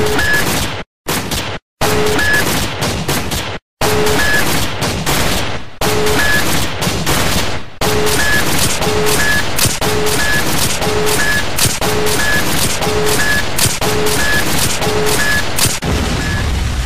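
Dense, rapid gunfire-like shots, with a short beep repeating about once a second. The sound cuts out abruptly two or three times in the first four seconds.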